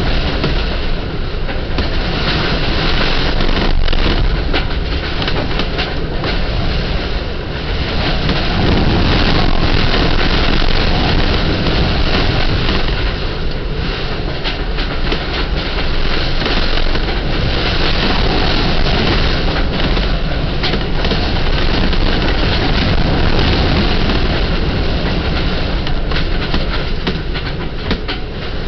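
Hurricane-force wind buffeting a sailboat up on storage stands, heard from inside its cabin: a loud, continuous rumble that swells and eases in gusts, with scattered knocks and rattles.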